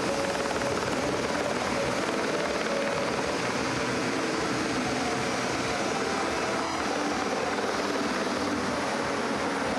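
Aircraft engine noise: a loud, steady drone that does not let up, with a faint high whine falling slightly near the end.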